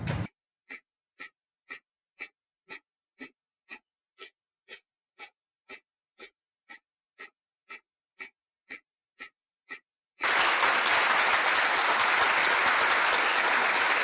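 Ticking clock sound effect for a countdown timer, an even two ticks a second for about nine seconds. About ten seconds in, it gives way to a loud, steady burst of applause that runs on for about four seconds as the answer is revealed.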